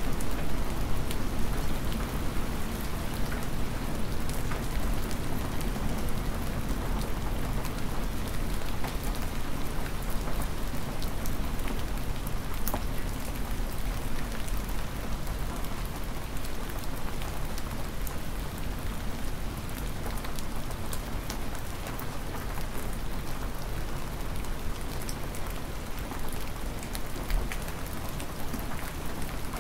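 Cold, hard, near-freezing spring rain falling steadily, with many sharp drop impacts ticking through it. A low, uneven wind rumble runs underneath.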